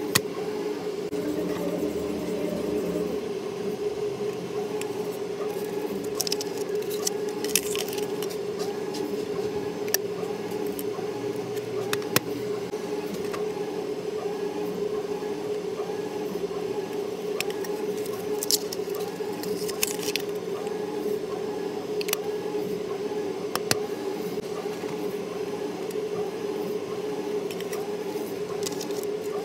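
Clear acrylic eyelash boxes being handled: scattered clicks and taps of the hard plastic cases and lids, a little cluster of them a few seconds in. Under them runs a steady hum with a faint regular pulse.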